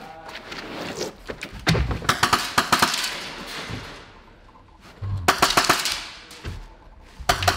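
High-pressure-air (HPA) airsoft guns firing rapid full-auto bursts: a long burst of about two seconds, a second of about a second, and a short one near the end.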